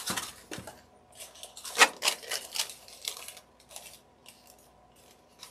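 Paper coffee filters rustling and crinkling as one is pulled off a stack and gathered by hand, in short irregular scratches, the sharpest a little under two seconds in.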